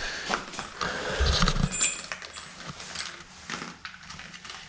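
Small metal hardware (washers and a bolt) clinking and rattling as it is taken apart by hand, with a few dull thumps about a second in.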